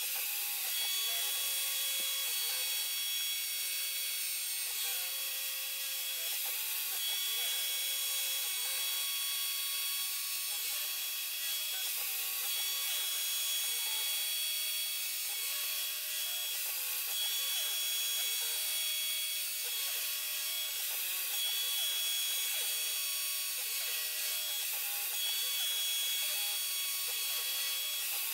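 C-Beam-based CNC router milling 6061 aluminium plate with an end mill: a steady high-pitched whine from the spindle and cutter biting the metal. Under it, a lower motor tone rises and falls over and over, about once a second, as the axes drive the cutter back and forth.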